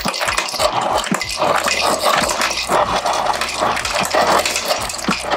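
Refrigerator door ice dispenser running: its motor hums while ice cubes clatter and rattle into a glass measuring cup. The hum starts about a second in and breaks briefly near the end.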